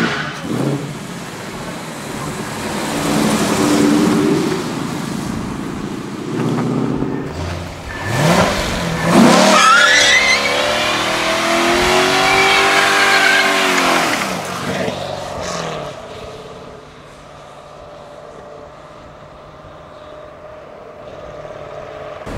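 A Ford Mustang drives past with its engine running. Then a C7 Corvette's V8 revs hard, rising sharply about eight seconds in, with its rear tyres spinning in a smoking burnout. The car pulls away and the engine sound fades over the last several seconds.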